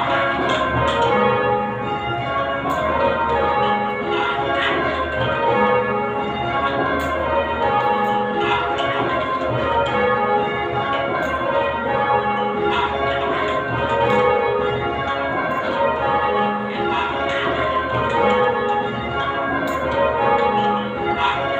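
A ring of eight Whitechapel-cast church bells, tenor about 10 cwt in A-flat, rung full-circle in rounds: each bell strikes in turn down the scale, treble to tenor, in a steady repeating sequence with the tones overlapping and ringing on.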